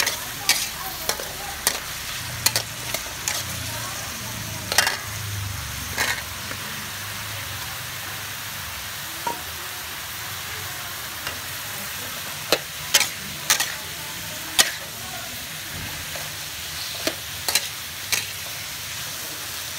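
Beef, carrots and cauliflower sizzling in a steel wok while a metal spatula stir-fries them, scraping and clinking against the pan. The spatula strikes come in clusters in the first few seconds and again from about twelve seconds in.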